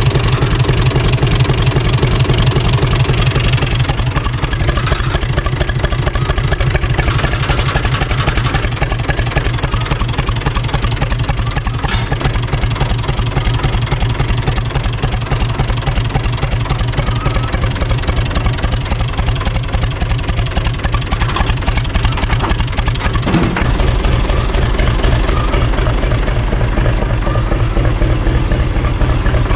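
UTB U445 tractor's four-cylinder diesel engine idling with a steady low, even beat. The note shifts lower and steadier about two-thirds of the way through.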